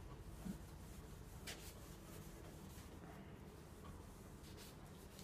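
Whiteboard eraser wiping across a whiteboard: a few faint, brief soft swishes.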